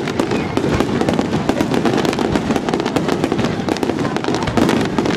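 Aerial fireworks shells bursting: a dense, unbroken run of bangs and crackles.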